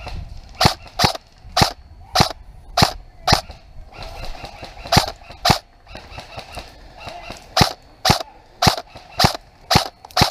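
Airsoft rifle firing single shots, about two a second, in three runs with short pauses between them.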